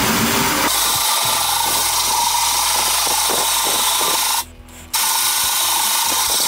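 Cordless drill turning an old hole saw through a metal bracket: a steady motor whine with the grinding of the cutter's teeth on metal. The drill stops briefly about four and a half seconds in, then starts cutting again.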